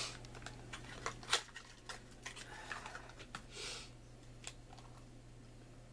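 Small clicks and light rustles of a cream container and its packaging being handled and opened, with a couple of short breathy sniffs as the cream is smelled.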